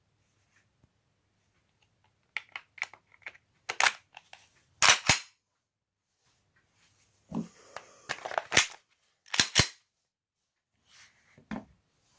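Glock 17 pistol being handled: irregular groups of sharp metallic clicks and clacks from its moving parts, with the loudest clacks coming in pairs.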